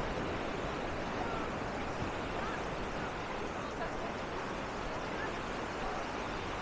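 Steady wash of surf on a sandy beach, with faint distant voices of beachgoers.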